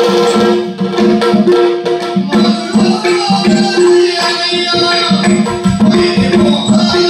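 Yakshagana accompaniment: maddale drum strokes in a quick rhythm over a steady drone, most likely from a shruti box or harmonium.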